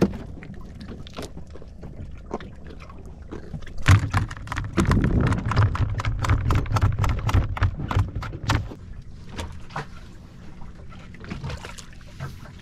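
A freshly caught horse mackerel thrashing in a plastic basket, a rapid run of sharp slaps and rattles starting about four seconds in and lasting roughly five seconds.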